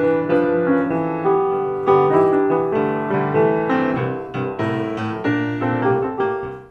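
Piano music: a melody of struck notes over chords, stopping near the end.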